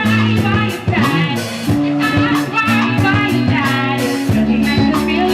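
Live band jamming: guitar over bass and drums with a steady beat.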